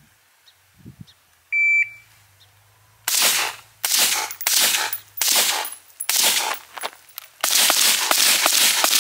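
A short electronic shot-timer beep, then a string of gunshots that start about a second later, one roughly every second at first and then in a fast run near the end, each shot ringing out with an echo.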